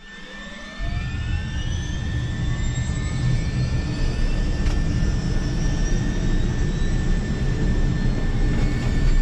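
Helicopter turbine engine starting up, heard from inside the cockpit: a whine climbs steadily in pitch as the turbine spools up, and a heavy low rumble sets in about a second in and stays.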